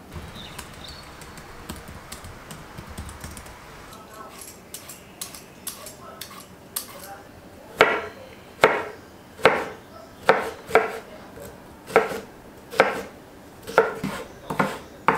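Chef's knife slicing zucchini into strips on a wooden cutting board: the blade knocks sharply on the board about once a second in the second half, after fainter, lighter cuts.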